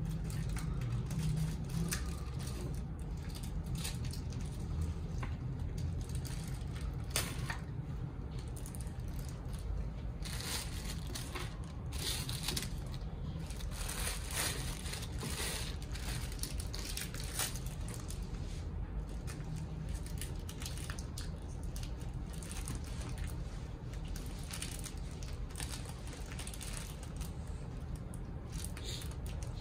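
Clear plastic packaging crinkling and rustling in irregular bursts, mostly in the middle, as an action figure is handled and unwrapped from its bag, over a steady low room hum.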